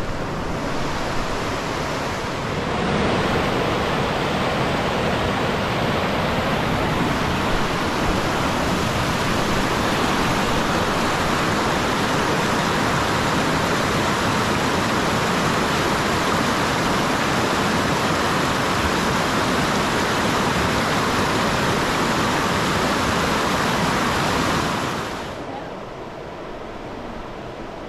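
Fast river water rushing over rocks, a steady loud roar that grows louder about three seconds in and cuts off sharply near the end, leaving a quieter background.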